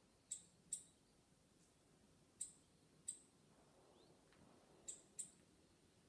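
Near-silent room tone broken by six short, sharp high-pitched clicks that come in three pairs, each pair a fraction of a second apart.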